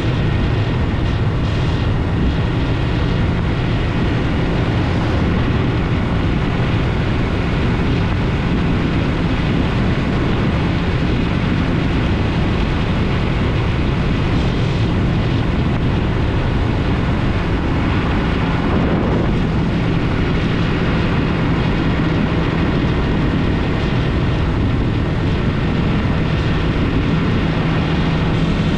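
Yamaha MT-03 motorcycle engine running steadily while riding, its drone mixed with a continuous rushing noise and no letup.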